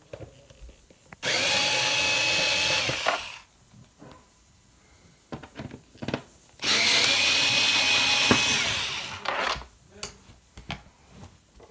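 Small cordless electric screwdriver running in two bursts of about two seconds each, each with a steady whine, backing screws out of the back panel of a flat-screen TV. Light clicks and taps of handling come between the bursts.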